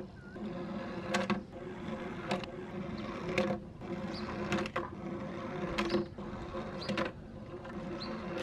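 Plastic toy trucks' wheels whirring steadily as they roll down a plywood board, with a sharp plastic clack about once a second.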